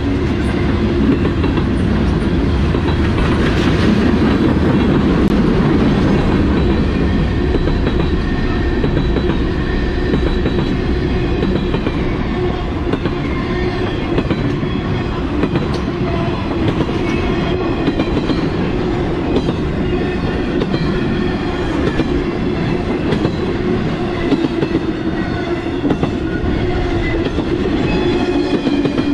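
Freight train of empty intermodal flatcars and well cars rolling past close by: a steady loud rumble with wheels clacking over the rail joints.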